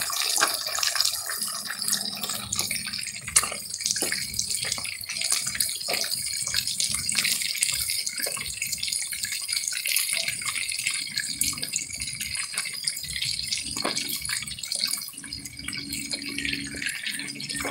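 Bluefish pieces frying in shallow oil: a steady sizzle with frequent sharp pops and crackles, the sign that the fish is getting crispy.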